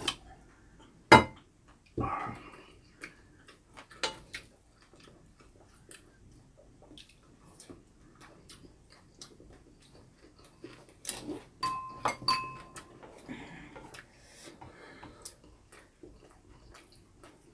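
Eating at a table: utensils and chopsticks click and clink against ceramic bowls at irregular moments, one clink around the middle ringing briefly. Soft sounds of chewing and eating come between.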